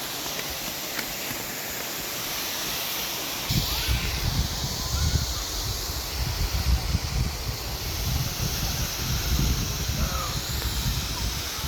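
Waterfall rushing steadily. About three and a half seconds in, an uneven low rumble joins it, with a few faint bird chirps.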